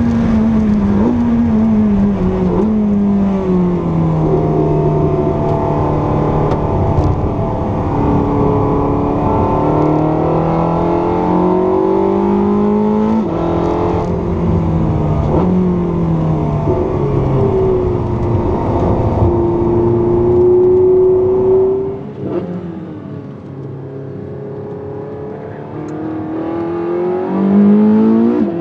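Porsche 918 Spyder's V8 heard from inside the cabin under hard acceleration on track, its note climbing through the revs and dropping back at each upshift. About three-quarters of the way through the engine note falls away and quietens, then climbs again near the end.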